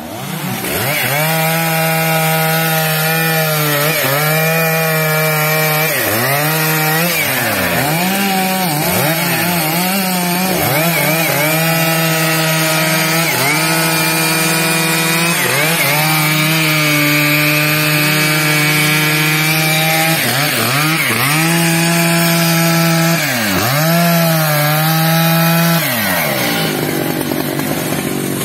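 Stihl MS 881 chainsaw, a 121.6 cc two-stroke, running at full throttle while cutting teak wood; its pitch sags again and again as the engine is pulled down in the cut, then picks back up. The sound starts abruptly and drops off near the end.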